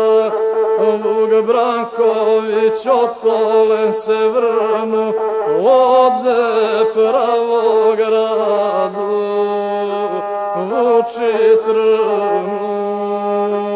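Gusle, the single-string bowed fiddle of South Slavic epic song, playing a wavering, ornamented melody with a nasal, buzzing tone, with a couple of quick upward slides in pitch.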